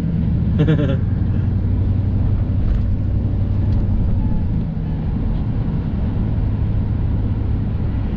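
1987 Class A motorhome driving along a town street: a steady engine drone with road and tyre noise.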